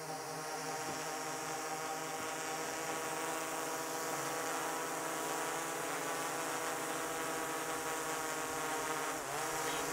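Quadcopter drone hovering close by: a steady propeller hum whose pitch dips briefly and comes back up about nine seconds in.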